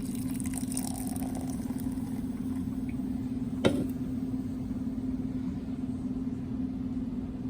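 Steady low hum throughout, with carbonated Coca-Cola coffee fizzing in a freshly poured glass for the first second or so, and one sharp knock about three and a half seconds in.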